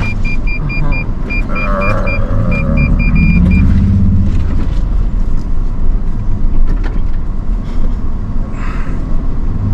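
Vehicle cabin on a slow off-road crawl with a steady low engine and tyre rumble. For the first few seconds an electronic obstacle-warning beeper beeps rapidly, set off by close brush on the narrow trail, then stops. Brief scrapes and knocks follow.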